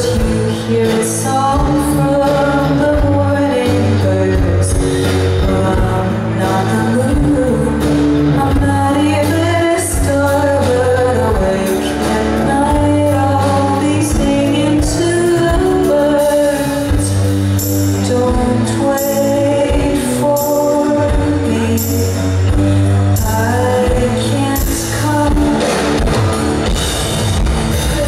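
Live indie rock band playing: a woman sings lead over electric guitar, electric bass and drums.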